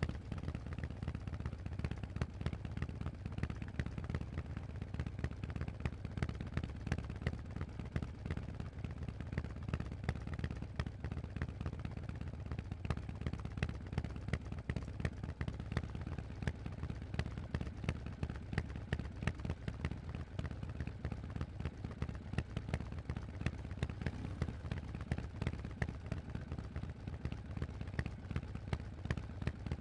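Harley-Davidson Forty-Eight's 1200 cc air-cooled V-twin running through a Vance & Hines exhaust, a steady rapid train of deep exhaust pulses with no marked revving.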